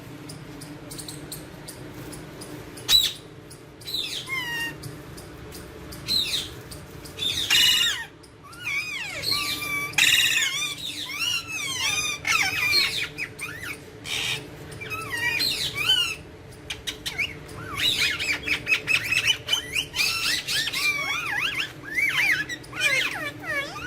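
Alexandrine parakeets chirping and squawking in short, quickly bending calls, a few scattered at first, then coming almost without pause in the second half, over a faint steady low hum.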